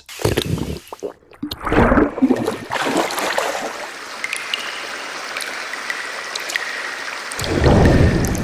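Library water sound effects played back one after another: gurgling and bubbling water, a steady trickling stretch in the middle, and a louder, deeper surge near the end.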